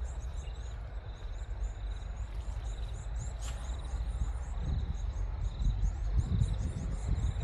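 Rural outdoor ambience: a steady high insect drone with rapid high-pitched chirping over a low rumble on the microphone.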